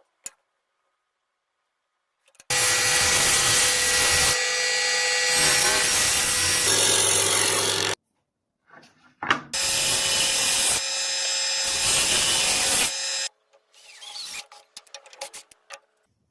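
An electric power tool working wood, running in two long passes of about five and four seconds, followed by a few light knocks and clicks of wood being handled.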